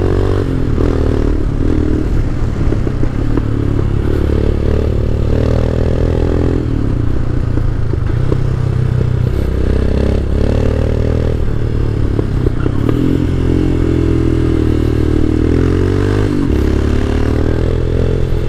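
Royal Enfield Himalayan's carbureted 411 cc single-cylinder engine running under way, its pitch rising and falling several times as the rider opens and closes the throttle.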